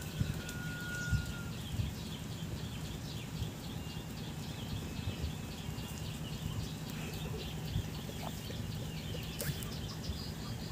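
Small birds chirping outdoors, a rapid run of short high chirps with a brief thin whistled note near the start, over a steady low rumble.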